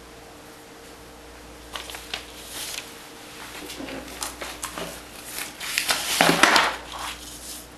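Small objects and paper handled on a tabletop: scattered clicks, taps and rustles, with a louder spell of rustling and scraping about six seconds in that lasts under a second.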